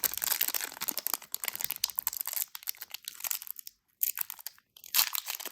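Crinkling and crackling of a foil trading-card pack wrapper and cards being handled, with a short pause about four seconds in.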